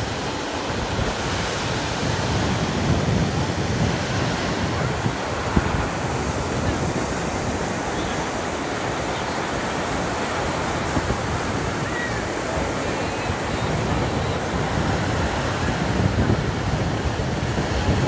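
Ocean surf breaking and washing up a sandy beach: a steady, even wash of fairly strong waves, with wind buffeting the microphone.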